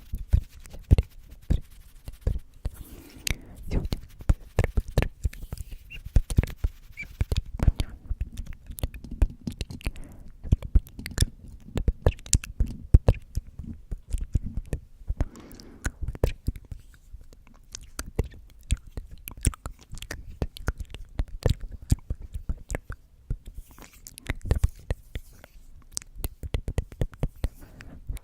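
Close-miked ASMR sounds in quick succession: a dense, irregular string of mouth clicks ('tk tk') and hand taps and rubs, with low thumps against the microphone and soft unintelligible whispering.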